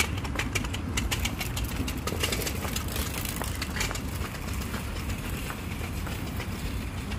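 A kick scooter's small hard wheels clicking and rattling over a concrete ramp, the clicks densest in the first half and thinning out, over a steady low rumble.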